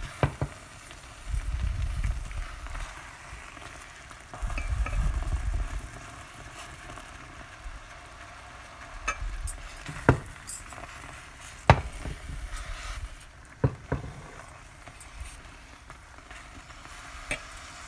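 Pot of boiled chicken and chana dal sizzling on high heat as its last water cooks off. A spoon stirs it, with two low rumbling stretches in the first six seconds and several sharp knocks against the pot in the second half.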